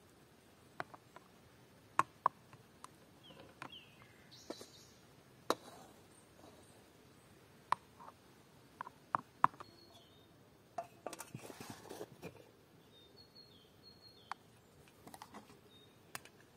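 A wooden spatula knocks and scrapes against a metal pot and a small mould as cooked rice is scooped and packed. The sharp clinks and taps are scattered, with a longer scraping stretch about two-thirds of the way through. Faint bird chirps are heard now and then.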